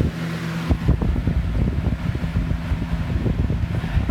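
Lasko 20-inch box fan, model 3733, running with an uneven, fluttering low rumble; the fan vibrates as it runs.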